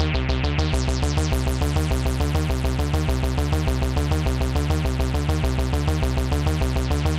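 Kiviak Instruments WoFi sampler-synth playing a fast bass arpeggio: rapid, evenly repeating notes with a deep low end. The tone brightens about a second in.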